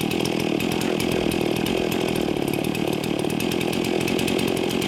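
Two-stroke chainsaw engine running steadily, holding one even speed without revving.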